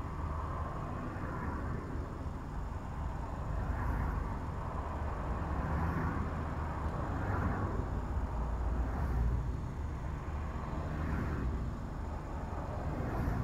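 Car driving along a road, heard from inside: a steady low rumble of engine and tyre noise, swelling gently every few seconds.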